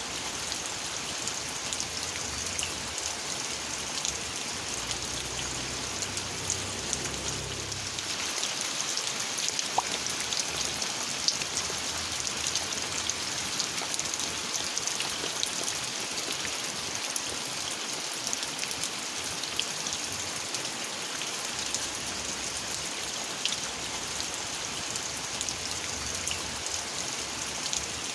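Steady rain falling, a continuous hiss of drops with scattered sharper drop ticks.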